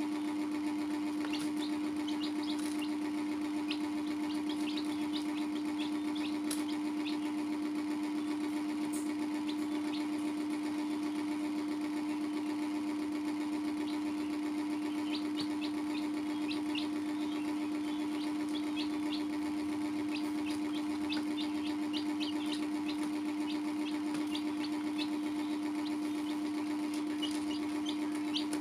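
A steady machine-like hum runs throughout with a fast flutter. Over it come scattered short, high peeps of baby chicks, busiest in the second half.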